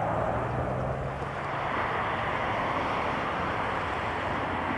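Business jet turbofan engines, a steady jet roar that eases slightly about a second in and then holds even.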